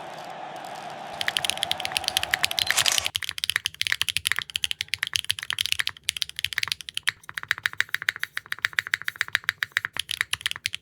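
Fast typing on a Neo65 Core Plus mechanical keyboard fitted with HMX linear switches: dense, uneven clacky keystrokes. The typing starts about a second in over a steady hiss, which cuts off about three seconds in.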